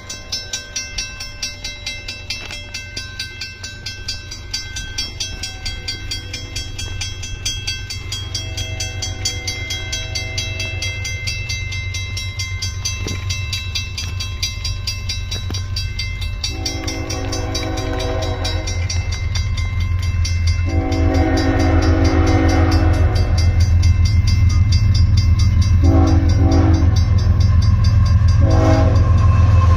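CSX freight locomotive horn, first faint and distant, then two long blasts and two short ones, louder, as the train approaches: the grade-crossing signal. A low train rumble grows steadily louder beneath it. A railroad crossing bell rings with a fast, even beat throughout.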